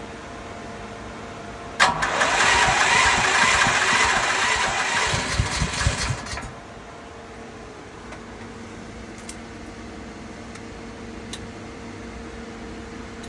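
Westinghouse WGen10500TFc generator engine cranking on natural gas for about four and a half seconds, then stopping without staying running: one more failed attempt in a hard-starting problem.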